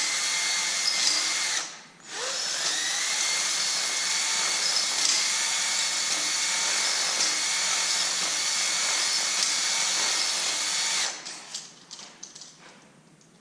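Electric drill spinning a three-stone deglazing hone inside a 6.0 L LS engine's cylinder bore, with a steady whine. It stops briefly just under two seconds in, spins back up with a rising pitch, runs steadily, then stops about eleven seconds in, followed by a few light clicks.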